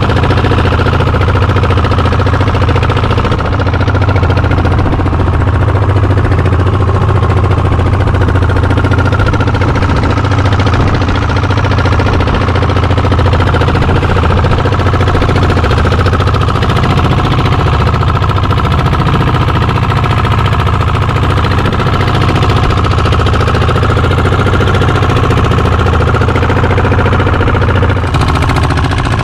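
Fishing boat's engine running at a steady speed while trolling, a continuous low chugging drone, with water rushing along the hull.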